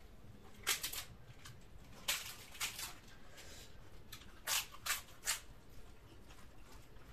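Crisp papad crackling as it is broken by hand and bitten: three clusters of short crunches, with soft squishing of fingers mixing rice and dal in between.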